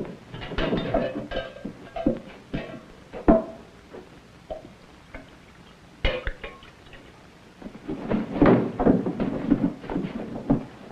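Tin cups knocking on a table, with clothes rustling: several sharp knocks, then a longer, louder stretch of rustling and scuffling about eight seconds in.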